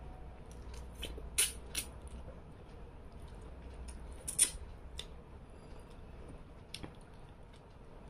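Close-up mouth sounds of eating rice and fish curry by hand: wet lip smacks and clicks while chewing. There are about five sharp clicks, two close together about a second and a half in and the loudest about four and a half seconds in.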